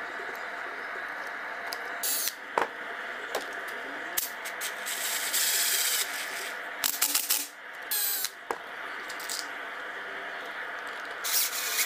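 Thin plywood pieces and bar clamps being handled on a wooden workbench: scattered short rubs, scrapes and sharp clicks over a steady background hiss.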